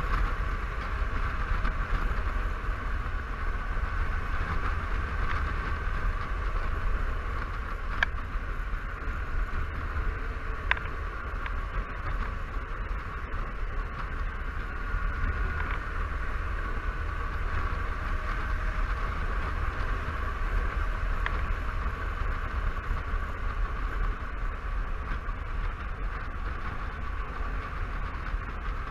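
Steady wind rush and road noise from a Honda Silverwing 600 maxi-scooter cruising on an open road, picked up by a bike-mounted camera, with a drone running underneath. A few faint ticks come through now and then.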